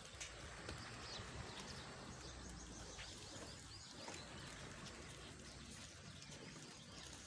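Faint, steady outdoor background noise with a few scattered soft clicks and taps.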